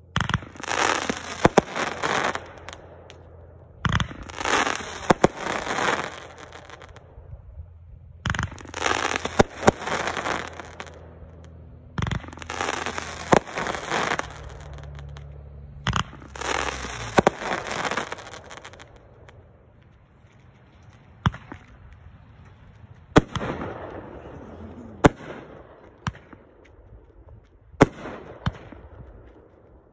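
500-gram consumer firework cakes firing. First comes a run of five loud volleys, each about two and a half seconds of rapid shots and crackling, about every four seconds. Near two-thirds of the way through, a second cake takes over with single sharp shots every one to two seconds, each followed by a fainter burst.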